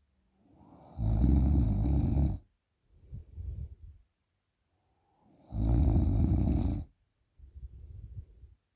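A person snoring heavily in sleep after drinking alcohol: two long, loud snores about four and a half seconds apart, each followed by a quieter, hissing breath out.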